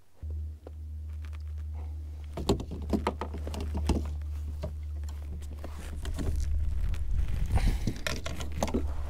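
Rattling clicks, knocks and light splashes as a hooked bass is landed and handled in a kayak, over a steady low rumble.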